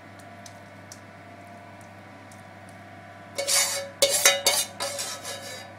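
Metal cookware and utensils clattering, starting a little past halfway, with several sharp knocks in quick succession that then fade.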